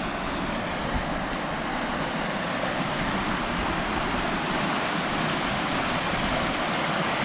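Creek water rushing steadily through small rapids.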